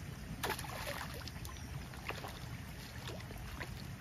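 A hooked fish splashing in shallow canal water: one sharp splash about half a second in, then smaller splashes and flicks of water, over a steady low rumble.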